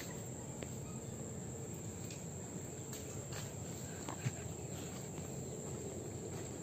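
Insects chirring steadily in a thin, high tone over quiet outdoor ambience, with a single faint click about four seconds in.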